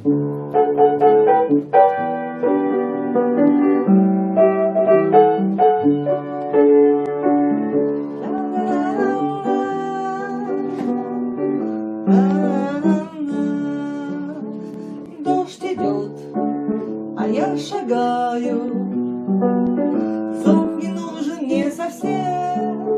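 Instrumental introduction of a children's song about rain: keyboard and guitar backing music that comes in suddenly and plays on without words.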